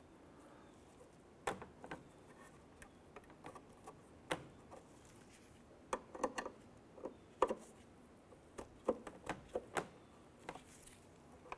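Faint, irregular light clicks and taps of a Phillips screwdriver and the plastic mirror-glass base of a Ram 1500 side mirror being worked as its tension screw is adjusted.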